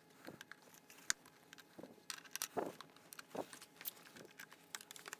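Faint, scattered clicks and light knocks of metal camera mounting hardware being handled and fitted at a cinema camera's top handle, as a monitor arm is attached.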